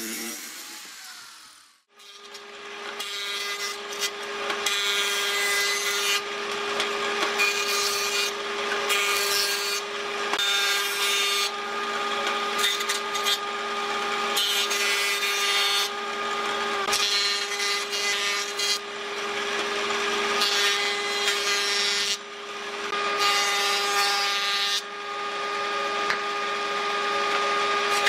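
An electric power tool winds down to silence in the first two seconds, then starts again and runs with a steady whine. Its cutting or sanding of wood comes as a loud rasping hiss that rises and falls every second or two, as the tool makes repeated passes over the wood.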